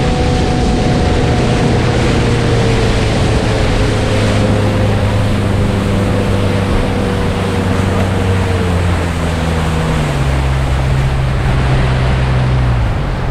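Motorboat under way: the boat motor runs steadily over a loud rush of wind and water, and its pitch drops in steps after about eight seconds as the boat slows down.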